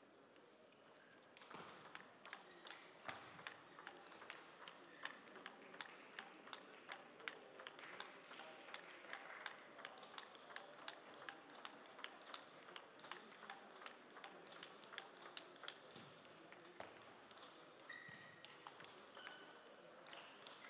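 Table tennis ball clicking back and forth between the bats and the table in a long, fast rally, about three to four hits a second. It starts about a second and a half in and stops well before the end.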